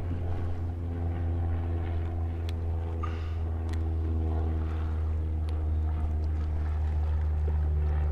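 Steady, low engine drone holding one even pitch, with a few faint clicks over it.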